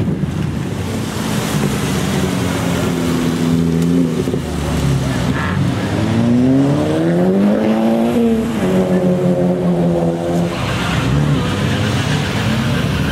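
Car engines running as cars drive past on a wet road. About six seconds in one car accelerates, its engine note climbing for about two seconds, then falling back and holding steady.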